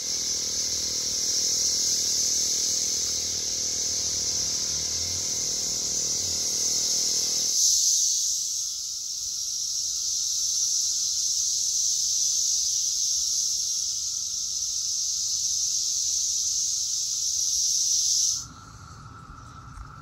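Chorus of periodical cicadas: a loud, steady, high-pitched buzzing that cuts off suddenly near the end.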